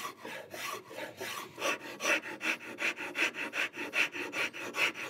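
Hand rasp filing the corner of a solid cherry table leg in repeated back-and-forth strokes, about two to three a second. The strokes grow firmer after about a second and a half.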